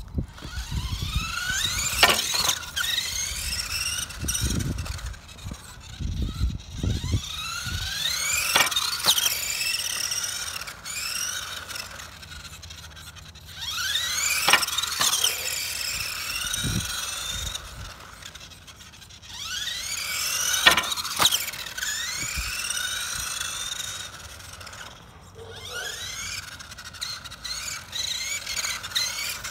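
Electric motor and gears of a 1/18 scale mini RC monster truck whining. The whine rises sharply in pitch with each burst of acceleration, about five times, and holds a steadier high whine while the truck cruises.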